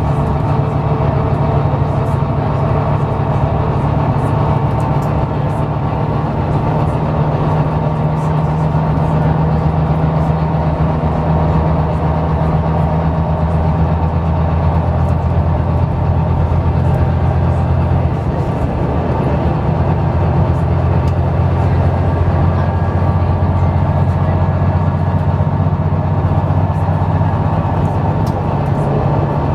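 Volvo B9TL double-decker bus on the move, heard from inside the passenger saloon: a steady low drone of its diesel engine and road noise, with faint light ticks.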